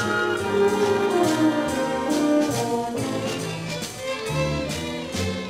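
Symphony orchestra playing a waltz, with strings, woodwinds and brass together; a melody line slides downward about a second in.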